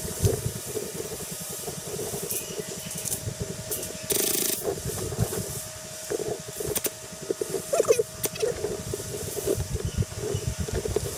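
Handling noise and footfalls on a player-worn camera: irregular low thumps and rustling, a faint steady tone, a short hiss about four seconds in, and a few sharp clicks a little past the middle.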